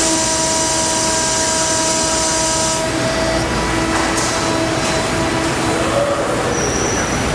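Salvagnini L3 CNC fiber laser cutter running: a steady mechanical hum with held tones. A high hiss in the first three seconds cuts off sharply.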